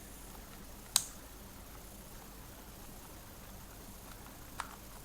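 A sharp plastic click about a second in and a fainter click near the end, from a toy RC car and its remote being handled while trying to pair them, over faint room hiss.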